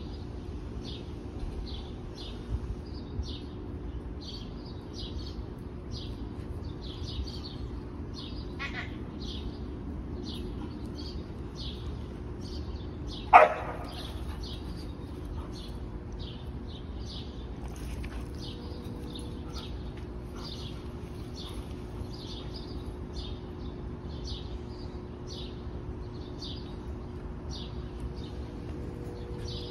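Dogs at play, with one sharp bark about a third of the way in and a fainter one earlier. A bird chirps over and over, about twice a second, over a steady low hum.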